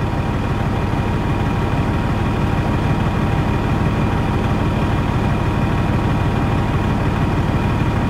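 Semi-truck diesel engine idling steadily, with an even low throb.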